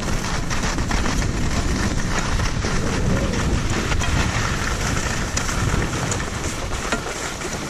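Rushing wind on an action camera's microphone with skis scraping and chattering over packed snow on a downhill ski run.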